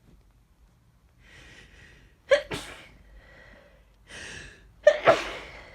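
A person sneezes twice, each sneeze coming after a gasping in-breath. They put it down to a cold or flu coming on.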